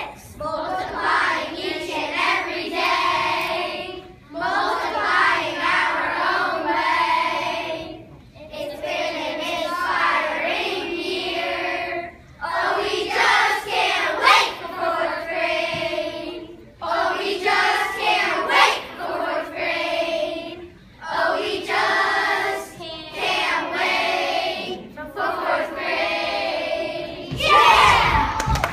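A class of young children singing together as a group, in phrases of about four seconds with short breaks between them. Applause breaks out near the end.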